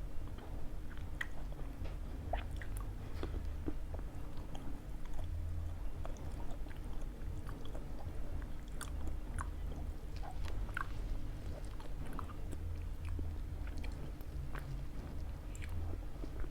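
Close-miked chewing and biting of pizza, with many small wet clicks and crunches scattered throughout, over a steady low hum.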